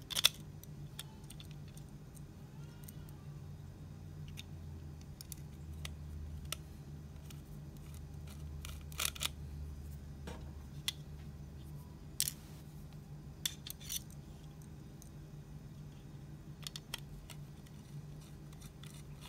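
Scattered small metallic clicks and taps of a magnetic screwdriver and screws fixing a low-profile bracket to a PCIe Wi-Fi card, the loudest click right at the start. A steady low hum runs underneath.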